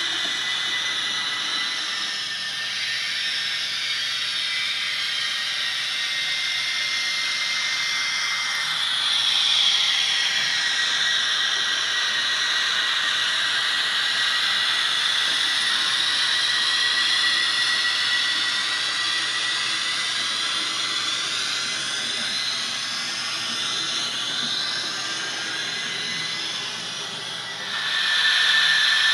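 ESU HO-scale E94 Crocodile model locomotive running, its LokSound V4 decoder playing the recorded sounds of the real E94 electric locomotive through its speakers: a whine over a steady hiss. The whine dips and climbs back in pitch about ten seconds in, and the sound gets louder near the end.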